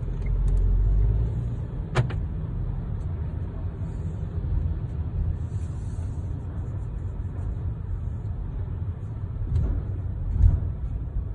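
Low, steady rumble inside the cabin of a 2019 VW T-Cross automatic as it rolls slowly off a ferry's car deck. There is a sharp click about two seconds in and a low thud near the end.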